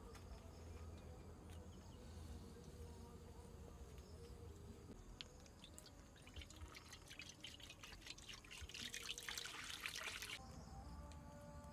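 Water poured from a plastic bottle into a blackened wok, trickling and splashing against the pan. The pour grows heavier about nine seconds in and stops suddenly about ten seconds in.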